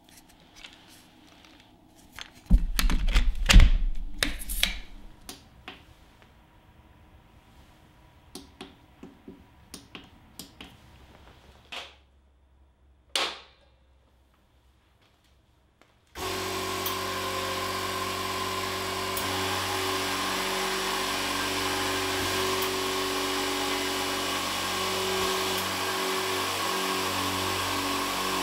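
Knocks and clatter of a heavy power plug and cable being handled. From about 16 s in, the Stahlwerk ST 1510 Pro oil-free air compressor starts and runs steadily, its pumps filling the 150-litre tank.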